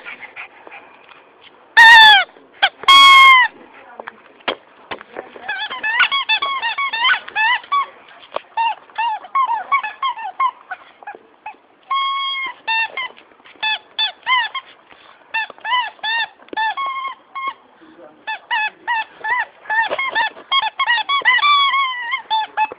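Dog chewing a squeaky rubber egg toy. Two loud, drawn-out squeaks come about two and three seconds in, then a long run of rapid short squeaks as it keeps biting down on it.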